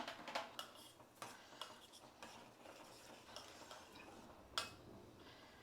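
Faint, scattered clinks and taps of a spoon against a pan as tea powder is stirred into hot milk, with a sharper knock about four and a half seconds in.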